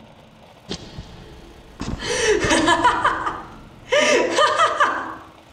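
Laughter in two bursts of about a second each, high in pitch, coming after a single sharp click just under a second in.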